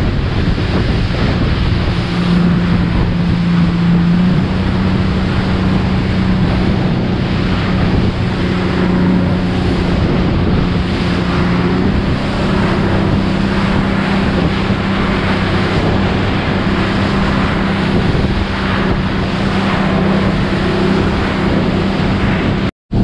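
Motorboat under way: the engine running as a steady drone, its pitch stepping up slightly a few seconds in, with wind buffeting the microphone and water rushing past the hull. The sound drops out for a moment near the end.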